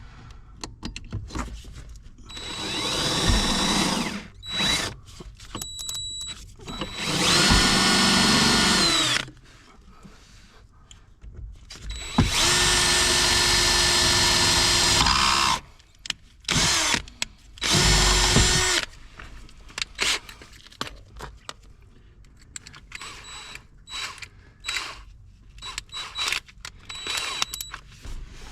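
Power drill boring a pilot hole, run in several bursts of one to three seconds with a longer steady run in the middle, the motor speeding up and slowing as the trigger is worked. Light clicks and handling noise come between the runs.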